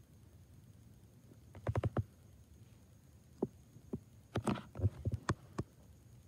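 Light, sharp clicks and taps: a quick run of about five just under two seconds in, then scattered single ones and a short cluster over the next few seconds.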